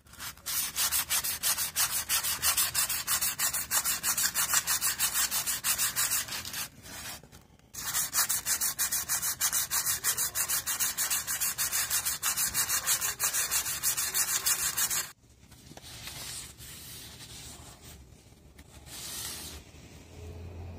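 Sandpaper scrubbed by hand round the inside of a motorcycle's metal brake drum in fast, even back-and-forth strokes, stopping for about a second partway through, to clean the braking surface. The scrubbing stops about two-thirds of the way in, and quieter, softer rubbing follows as a cloth wipes the drum.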